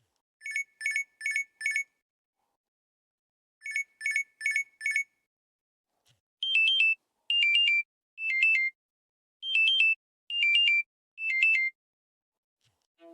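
Electronic ringtone or alarm tones from an LG phone: two groups of four quick, high beeps, then six longer two-note chirps that alternate in pitch.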